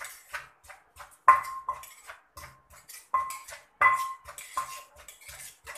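Wooden pestle pounding long-bean salad in a clay mortar, with a metal spoon held against the inside of the mortar. About eight strikes come roughly one every 0.7 s, each a sharp knock with a short ringing clink.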